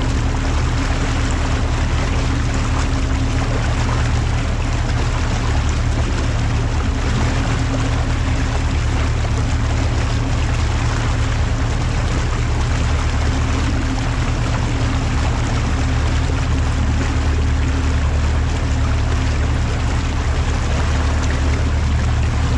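Outboard motor running steadily at cruising speed, a constant low drone, with water rushing past the hull.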